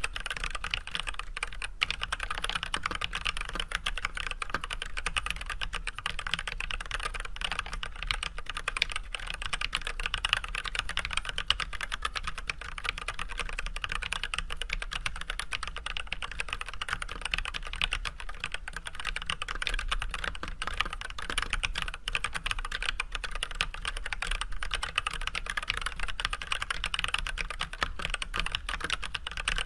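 Continuous normal-speed typing on an Archon AK87 hot-swap mechanical keyboard with unlubed Everglide Red 67g linear switches fitted with switch films and white PBT keycaps: a dense, steady stream of keystroke clacks.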